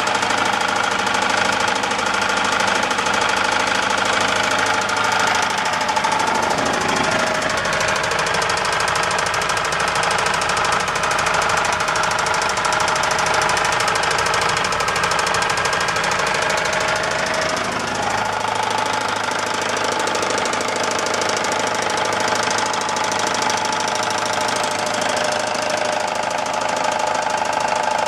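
Universal Atomic 4 four-cylinder gasoline marine inboard engine running with a steady knock; its pitch drops a little about seven seconds in and comes back up about eighteen seconds in. The cause of the knock is unknown, and the owner fears a failed head gasket.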